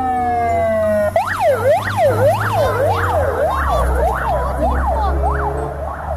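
Ambulance siren: a long falling wail that, about a second in, switches to a quick rising-and-falling sweep about twice a second. A low rumble of traffic sits underneath.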